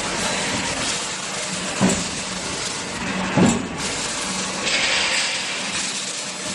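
Hydraulic die cutting machine running with a steady hum and hiss, two short thumps about two and three and a half seconds in, and a burst of hiss about five seconds in.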